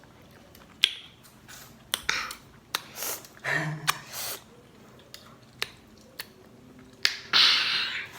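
Close-up eating sounds of crunchy sour Marian plum with chillies: sharp crisp bite clicks and short wet chewing and sucking noises, with a longer, louder suck of air about seven seconds in.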